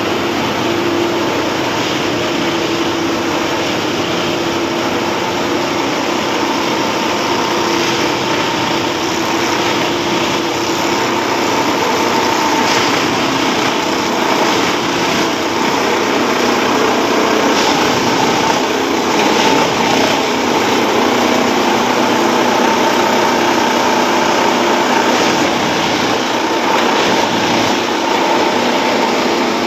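Plasser Duomatic track tamping machine at work: its engine and hydraulics run loud and steady with a humming tone while the vibrating tamping tines work the stone ballast under the sleepers.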